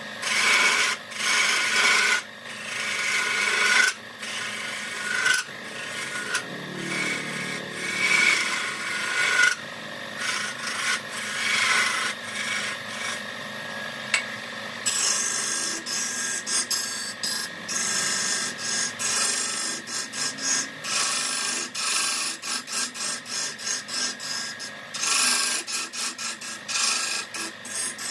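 Woodturning tool rasping and scraping against wood, in uneven strokes that turn into a quicker run of short strokes about halfway through.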